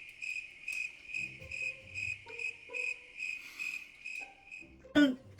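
Cricket chirping: a steady high trill that pulses about twice a second, then stops shortly before the end.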